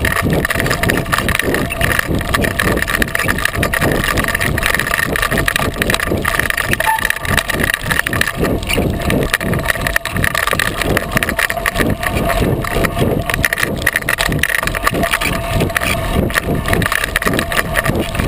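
36-inch Coker unicycle tyre rolling down a dirt and gravel trail, heard from a GoPro mounted on the unicycle: a loud, steady rushing noise full of rapid small bumps and rattles.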